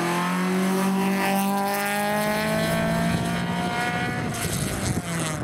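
Hillclimb race car's engine pulling hard under full throttle, its pitch climbing steadily for about four seconds before easing and dropping slightly near the end as the car goes away up the course.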